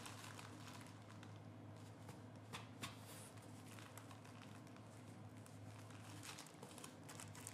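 Faint rustling and a few light taps as a kitten paws and mouths a cotton swab on the nylon floor of a play tunnel, over a low steady room hum.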